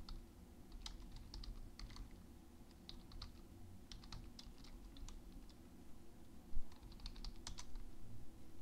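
Typing on a computer keyboard: irregular key clicks in short bursts, with one louder knock about two-thirds of the way through.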